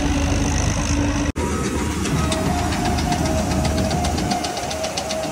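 New Holland tractor's diesel engine running steadily. About a second in the sound cuts abruptly to another stretch of the engine running, now with a fast light ticking over it.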